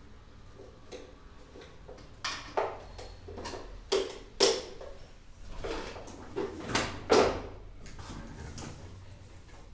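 A run of sharp knocks and clatters, objects being handled and set down, starting about two seconds in and stopping a couple of seconds before the end.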